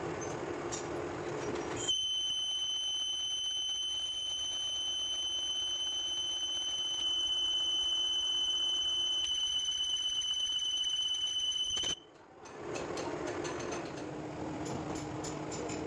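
Metal lathe cutting a spinning gear blank with a carbide insert tool. After about two seconds a steady high-pitched squeal from the cut sets in over the machining noise and holds for about ten seconds, then breaks off suddenly. The plain cutting noise with the lathe's hum returns near the end.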